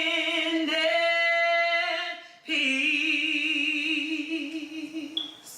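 A woman singing a gospel song, holding two long notes with a short break between them about two seconds in, the second note wavering with vibrato.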